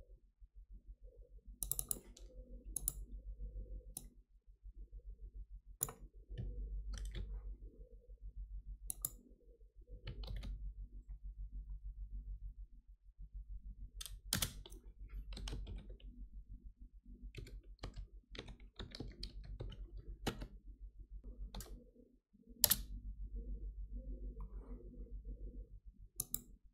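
Typing on a computer keyboard: irregular key clicks with short pauses, a few sharper single clicks among them, over a low steady hum.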